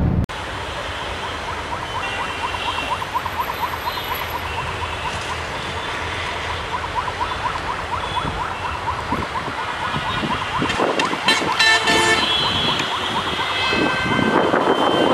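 Approaching metre-gauge diesel train: its horn sounds from about eleven seconds in and the level rises toward the end, over a rapid, even chirping heard through the first part.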